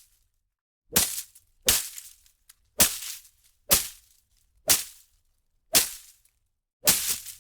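Leafy plant foliage being struck and whipped: about seven sharp swishing hits, each ending in a short leafy rustle, roughly one a second, with two hits close together near the end.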